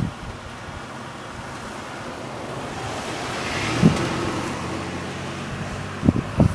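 A car passing by, rising to its loudest about three and a half seconds in and then fading, with a few low thumps of wind on the microphone.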